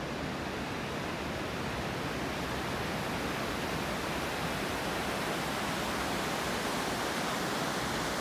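Steady rush of a fast glacial meltwater river running over stones, growing slightly louder toward the end.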